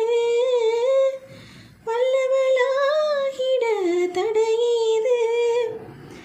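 A woman singing a Tamil film song unaccompanied, in long held notes that bend in pitch, with a short break for breath about a second in.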